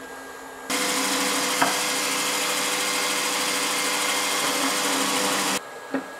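Milling machine spindle running at high speed: a loud, hissing whir with steady tones that starts abruptly about a second in and cuts off abruptly near the end, followed by a single sharp click.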